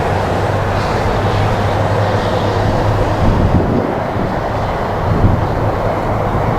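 A motor vehicle running: a steady low engine hum under a broad rumbling noise, the hum easing off a little past the middle.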